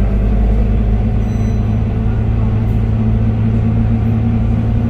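Scania K230UB city bus's diesel engine and drivetrain running steadily under way, heard from inside the passenger cabin as a steady low hum.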